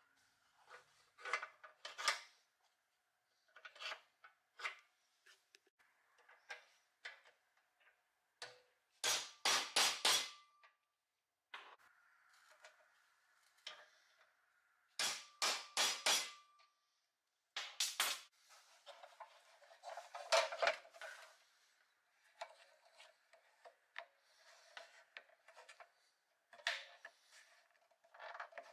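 Hammer tapping a punch on a wheel hub of a pressed-steel Tonka toy truck to seat the wheel on its axle: quick runs of metal taps, one with a short metallic ring, about a third and halfway through. Lighter clicks and knocks of the wheels and steel body being handled fill the gaps.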